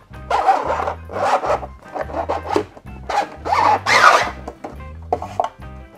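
Rigid 3D-printed plastic filter box scraping and rubbing against the filter housing in several rough bursts as it is moved in its compartment, over steady background music.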